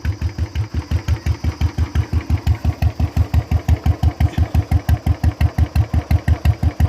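Royal Enfield Bullet 350 single-cylinder engine idling with its silencer removed, straight open exhaust: an even, loud thump at about seven beats a second.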